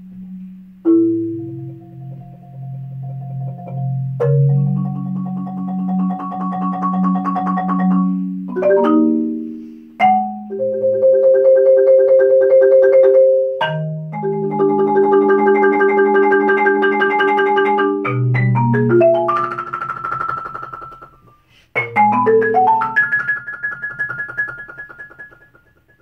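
Concert marimba played with four yarn mallets: chords held by rapid rolls that swell and shift in pitch, punctuated by a few sharp single strokes. The last chord fades away near the end.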